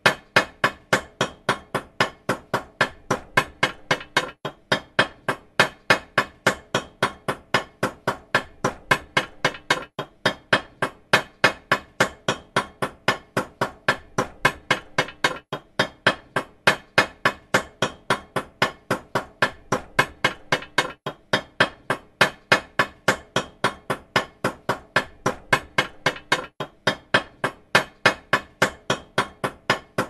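Hammer driving nails, in quick, evenly spaced blows of about four a second, each a sharp strike with a short ring.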